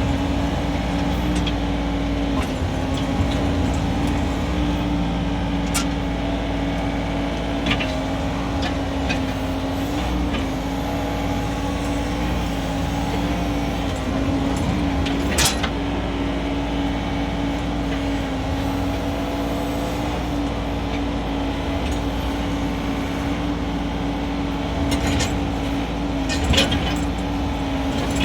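Diesel engine of a CFG KU45 mini excavator running at a steady speed, with a few sharp knocks now and then.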